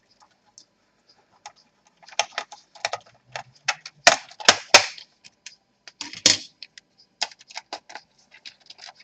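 Irregular clicks, taps and knocks of plastic laptop parts being handled: the battery and back cover panels of a Dell Inspiron N5010 coming off. The sound is sparse at first, then comes in clusters, the loudest knocks about halfway through.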